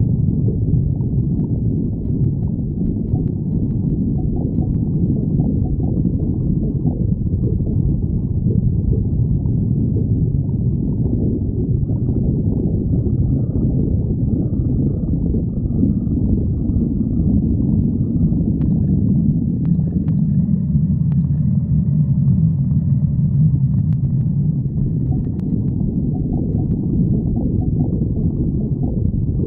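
A woman's stomach growling: a continuous low rumble with gurgling. A few faint higher gurgles come through in the second half.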